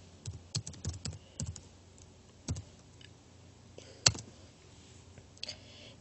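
Typing on a computer keyboard: a quick run of key clicks in the first second and a half, then single keystrokes scattered at irregular intervals, one sharper click about four seconds in.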